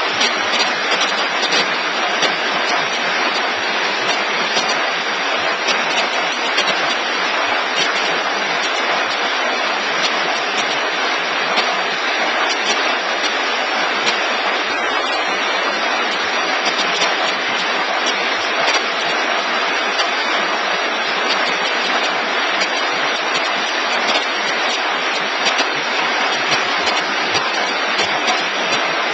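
Paper take-away box forming machine running: a steady, dense mechanical clatter of many small ticks over a hiss.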